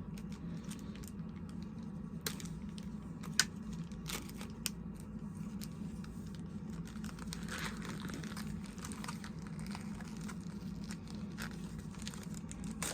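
Action-figure packaging being handled: crinkling and rustling of plastic and cardboard with a few sharp clicks, over a steady low hum.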